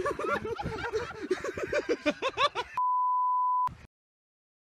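A person laughing hard in quick, high-pitched bursts, cut off by a censor bleep: one steady high tone lasting just under a second, after which the sound drops to dead silence.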